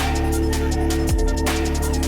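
Electronic background music, dubstep-style, with heavy bass drops and a steady beat.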